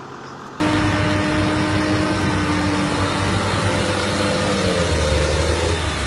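Large farm tractor's diesel engine running steadily as the tractor churns through deep mud, its tyres spinning and throwing mud; the sound cuts in about half a second in, and the engine note shifts in pitch near the end.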